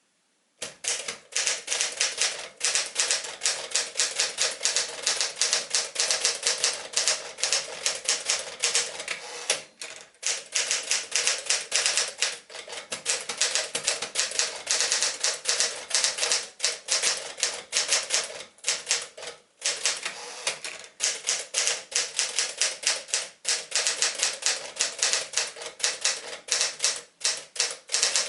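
1965 Smith-Corona Sterling manual typewriter being typed on: a fast, continuous run of key strikes, the typebars clacking against the platen several times a second, broken by a few short pauses. The typing starts about half a second in.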